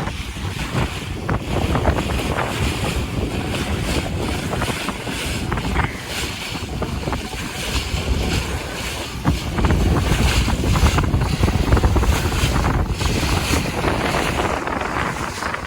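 Strong wind buffeting the microphone on a sailboat under way, over the rush of water along the hull.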